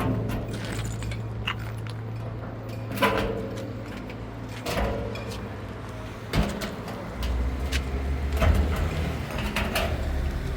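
A steady low machine hum with several separate knocks and clunks over it; the hum grows deeper and louder about seven seconds in.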